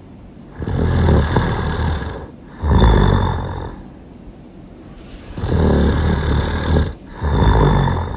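Really loud human snoring, two breaths: each a long snore followed straight away by a shorter one, the first pair starting about half a second in and the second about five seconds in.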